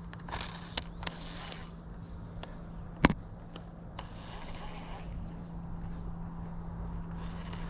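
Insects calling in one steady, high, even tone over a low steady hum. A single sharp click about three seconds in is the loudest sound, with a few fainter clicks in the first second or so.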